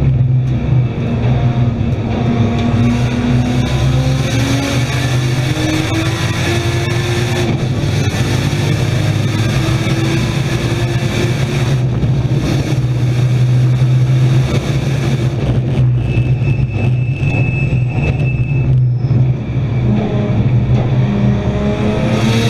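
Nissan Skyline R32 race car's RB straight-six heard from inside the cabin, running hard under load with its pitch climbing as it pulls through the gears. There are short breaks in the sound, and a brief dip about nineteen seconds in, before it climbs again.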